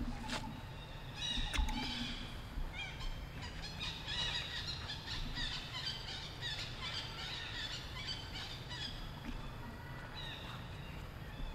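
A dense run of short, high-pitched animal chirps and squeaks, many overlapping calls with no pause, over a steady low rumble, with a couple of sharp clicks near the start.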